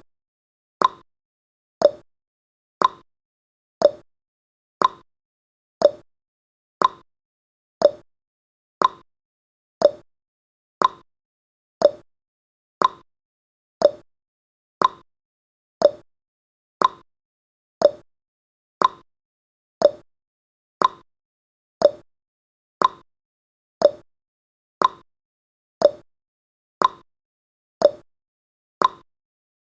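Countdown timer's ticking sound effect: one short, sharp tick every second at an even pace, like a clock.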